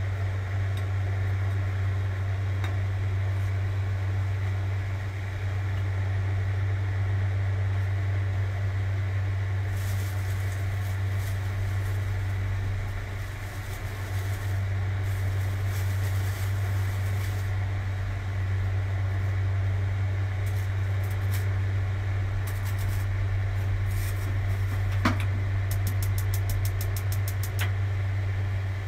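Steady low mechanical hum of kitchen equipment running, unchanging throughout. A few faint clicks and, near the end, a quick run of fast faint ticks.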